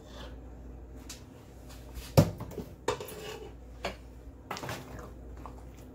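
Kitchen utensils knocking and scraping against a stainless steel cooking pot as cooked rice is spooned in and mixed with chicken. There is one sharp clang about two seconds in, then a few lighter knocks.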